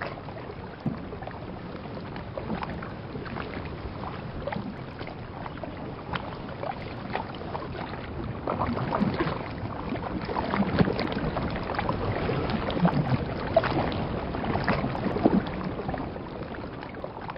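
Underwater water ambience: a muffled wash of water full of small bubbles popping and gurgling, growing louder about halfway through and starting to fade out near the end.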